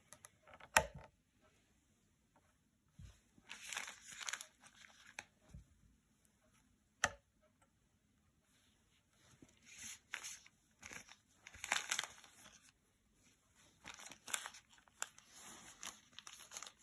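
Handling noise from a gloved hand working the range selector knob of a CD V-715 survey meter: bunches of soft rustling and crinkling, with a sharp click about a second in and another about halfway through.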